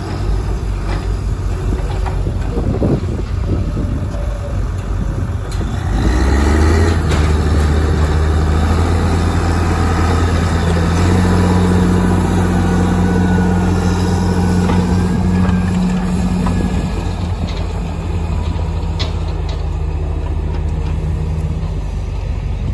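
2003 Fabtek forwarder's diesel engine running, rising in pitch and getting louder about six seconds in as the loaded machine drives past on chained tires, then easing slightly as it moves away.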